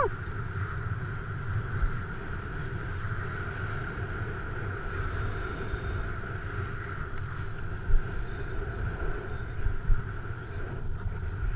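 Wind buffeting the camera's microphone: a steady, uneven low rumble with a hiss over it, and two soft thumps about eight and ten seconds in.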